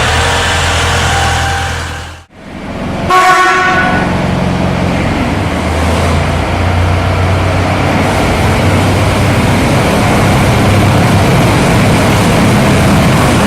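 Miniature railway locomotive running with a steady engine hum. A short horn toot sounds about three seconds in, just after a sudden brief drop-out, and the running noise carries on after it.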